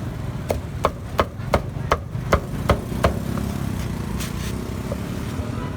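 Cleaver chopping on a chopping block: eight quick, evenly spaced strokes, about three a second, over a steady low rumble of engines.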